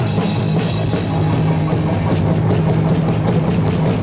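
Live rock band playing super loud, with electric guitars and a drum kit driving a busy beat over steady low bass notes.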